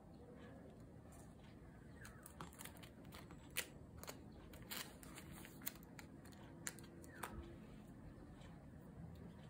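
Photocards and plastic card sleeves being handled: faint, irregular clicks and crinkles over quiet room noise, a few sharper ticks in the middle.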